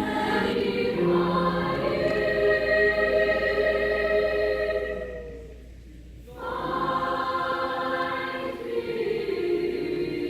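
Junior high choir singing long held chords. The sound fades out about halfway through, and after a short pause the voices come back in on a new chord.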